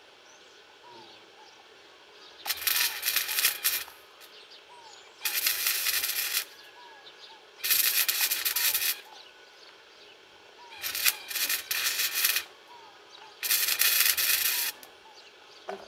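TITANIUM Easy-Flux 125 flux-core wire-feed welder arcing on steel in five short welds of about a second each, a second or so apart, each a burst of crackling that starts and stops with the trigger.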